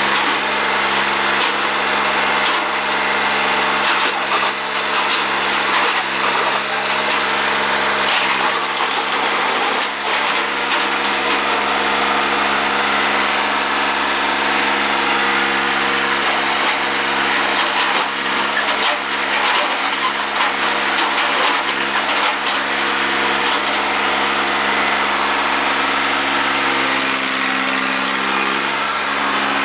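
Large John Deere tractor's diesel engine running steadily, with scattered clicks and crunches over it and the engine speed rising slightly near the end.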